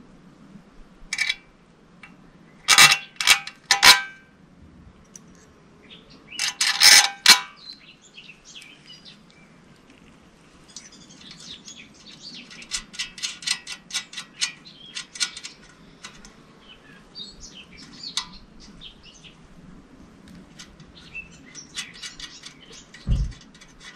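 Small metal parts and tools clinking sharply as they are picked up and handled, a few loud clinks in the first seven seconds, followed by quicker, lighter clicking. Birds chirp in the background.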